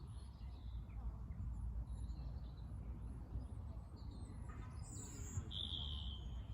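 Wild birds chirping and calling, with short high notes scattered throughout and one louder, held call about five and a half seconds in, over a steady low background rumble.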